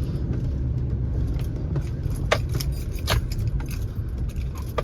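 Inside a pickup truck's cab climbing a snowy dirt road: a steady low rumble of engine and tyres, with a few sharp rattling clicks from the cab about halfway through and again near the end.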